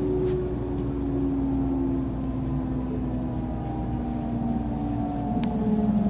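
JR Central 373 series electric train heard from inside the car while braking. The whine of its Toshiba GTO-VVVF inverter slowly falls in pitch as the train loses speed, over a steady rumble of wheels on rail. A click comes about five seconds in, after which a lower tone takes over.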